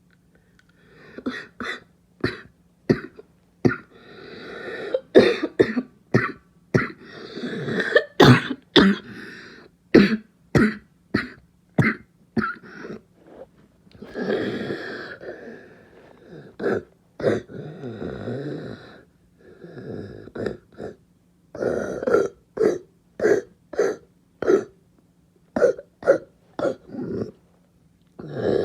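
A person with a barking cough coughing in repeated fits of short, sharp coughs, broken by a few longer hoarse, noisy stretches between the fits.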